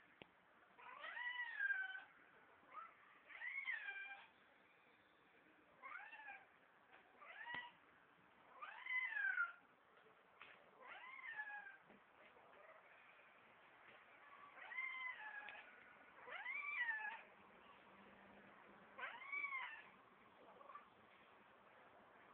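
Domestic cat meowing over and over, about nine meows a second or two apart, each rising then falling in pitch: a thirsty cat asking for water at the bathroom sink.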